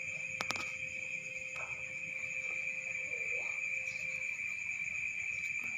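Steady, high-pitched chirring of night insects, likely crickets, with a couple of sharp clicks about half a second in.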